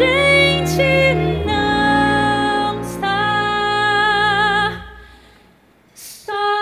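Orchestral ending of a show-tune ballad: a held note with vibrato, then sustained chords that die away about five seconds in, before a new held chord comes in near the end.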